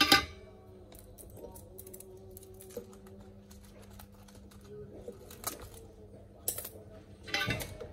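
Scattered clicks and taps of plastic and metal as an HP 15 laptop's keyboard and top case are handled and pressed into place by hand. A sharp click comes right at the start and a short flurry near the end, over a faint steady hum.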